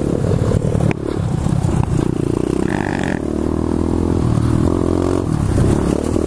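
The single-cylinder four-stroke engine of a 2015 SSR 125cc pit bike running close to the microphone as it is ridden, its pitch rising and falling with the throttle, with a brief higher tone about three seconds in.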